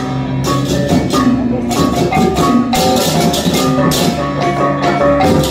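Balinese bleganjur (baleganjur) gamelan played live: repeated clashing ceng-ceng hand cymbals over drums and steady tuned gong tones.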